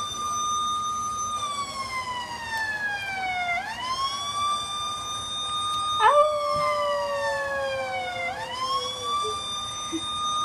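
Long siren-like wails played from a computer's speaker to set a dog howling. Each wail rises, holds, then slides slowly down in pitch, and repeats, with a sudden drop in pitch about six seconds in.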